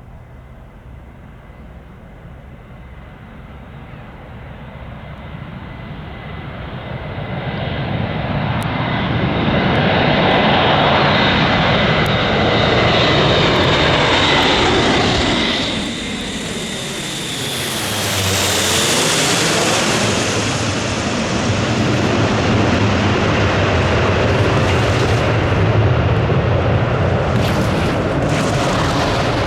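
Airbus A400M's four turboprop engines on approach, growing loud as the aircraft comes closer, with a high whine over a deep rumble. The whine drops slightly in pitch as it passes, about two thirds of the way in, and the noise stays loud afterwards.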